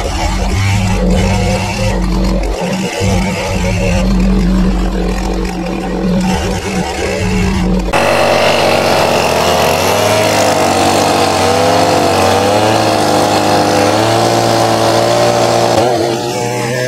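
Two-stroke STIHL chainsaw running and cutting through a log. For the first part it is a steadier, lower engine drone. About eight seconds in the sound switches abruptly to a higher engine note that wavers up and down as the chain bogs and recovers in the wood.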